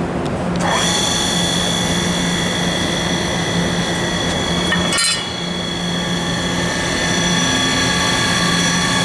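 Mitsui MSG-200MH surface grinder's wheel spindle motor starting up: a whine that rises in pitch about half a second in, then settles into a steady high-pitched whine at running speed. A brief extra noise with a short dip in loudness comes about five seconds in.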